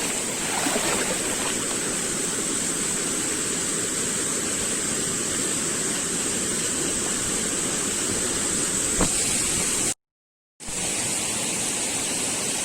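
Mountain stream water rushing steadily over rocks, a constant even rush. The sound cuts out completely for about half a second near the end.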